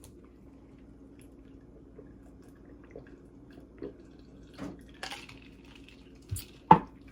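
A person sipping and swallowing a drink, sparkling water, close to the microphone: faint wet mouth ticks, then a few louder gulps near the end.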